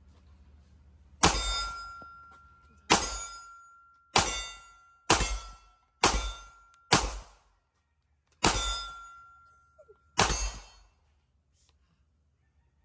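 Eight pistol shots from a Smith & Wesson M&P40c compact handgun, fired one at a time at an uneven pace about one to one and a half seconds apart. Each is a sharp report that trails off in a short echo.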